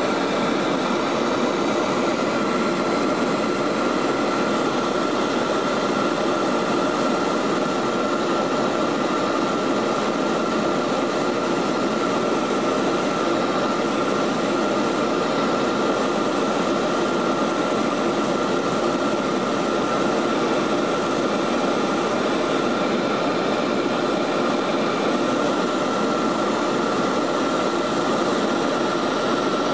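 Steady in-cabin drone of a Lockheed L-188 Electra's Allison 501 turboprops in flight: an even roar with a constant high whine running through it.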